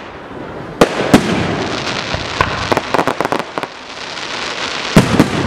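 Aerial firework shells bursting overhead: two sharp bangs about a second in, a quick run of smaller cracks and pops in the middle, and more bangs near the end.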